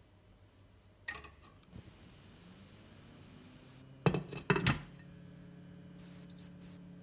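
Glass pan lid set down onto a frying pan, clinking and rattling against the rim several times in quick succession. A light clink comes about a second in, and after the lid settles a low steady hum carries on.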